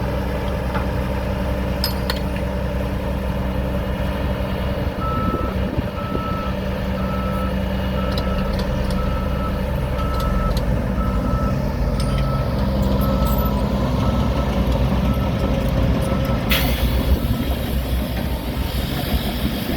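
Heavy vehicle engine running steadily, with a reverse alarm beeping about once a second for some ten seconds. Near the end the beeping stops and a sudden loud hiss starts and keeps going.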